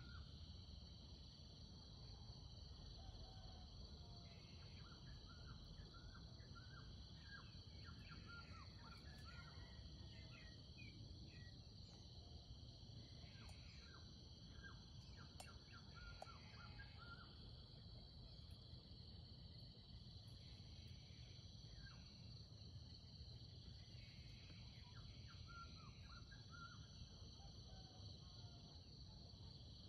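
Faint woodland ambience: a steady high insect drone, with scattered bursts of short, quick bird chirps.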